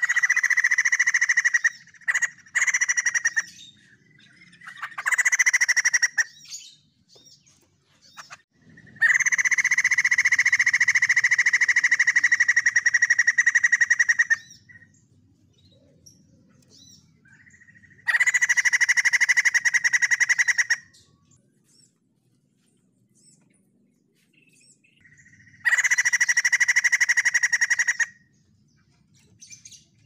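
White-crested laughingthrush calling in loud bouts of rapid, rattling notes, five times, the longest lasting about five seconds, with quiet pauses between.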